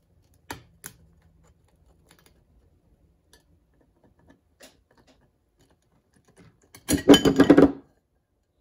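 Ice cubes clattering in a glass bowl for just under a second, about seven seconds in, as a cube is taken out. Before it come two light clicks and a few faint ticks of ice on the glass.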